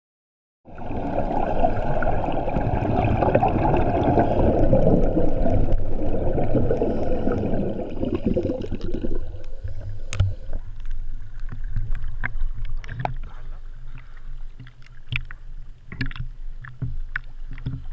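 Muffled rushing of scuba exhaust bubbles and moving water against a GoPro's waterproof housing during an ascent. About nine seconds in it gives way to a lower, thinner sound with short sharp splashes of water lapping against the housing at the surface.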